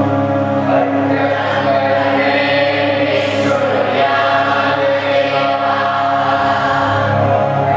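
A large group of young women singing together in unison, held notes over steady low tones underneath.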